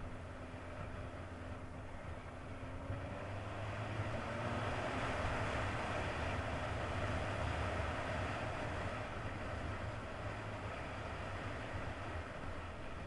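1999 Kawasaki ZX-9R's inline-four engine running under way, mixed with wind rushing past the camera. The engine note rises and the sound swells a few seconds in, then eases off toward the end.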